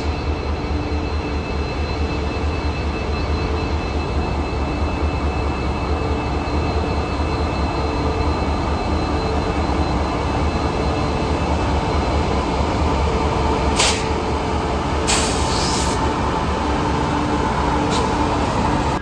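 EMD 16-cylinder 710G3B two-stroke diesel engine of a WDP-4 locomotive running steadily with a deep, continuous hum, with a couple of short hisses about two-thirds of the way through.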